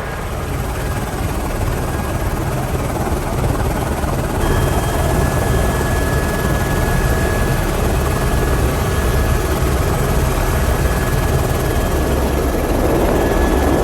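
Helicopter rotor and engine running steadily, heard from inside the cabin, with a deep pulsing rotor beat under a dense rush of noise. A thin steady whine joins about four seconds in.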